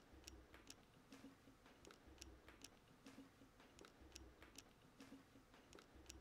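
Near silence: quiet room tone with faint, sharp ticks coming in pairs about once a second.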